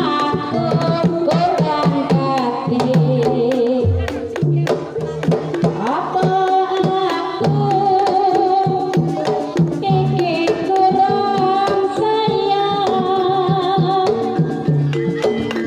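Sinden, a Javanese female singer, singing a Banyumasan tayub gending through a microphone with long, wavering held notes, over the steady strokes of a kendang drum and gamelan accompaniment.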